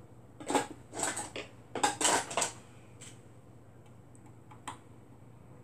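Light metallic clicks and clinks of a needle and small tools against a serger's needle clamp as a fallen-out needle is being refitted. There is a quick run of them in the first two and a half seconds, then a few scattered single clicks.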